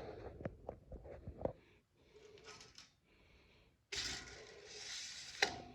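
A steel scribe scratching a mark across steel channel: a few light ticks and taps, then a dry scratching drag of about a second and a half that ends in a sharp click.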